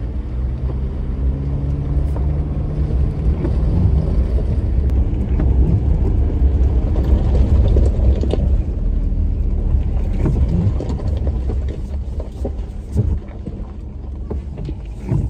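A vehicle driving slowly along a gravel farm track, heard from inside the cab: a low engine and tyre rumble with scattered clicks and knocks from the gravel. It gets quieter over the last few seconds.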